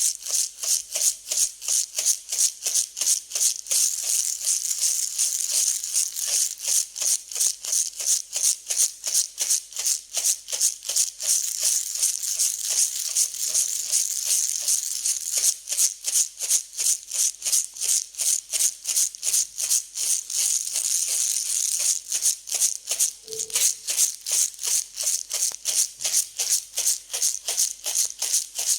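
Dry mixed grains shaken back and forth, rattling and hissing in a regular rhythm of about two to three shakes a second, with a few stretches where it runs together into a continuous rustle.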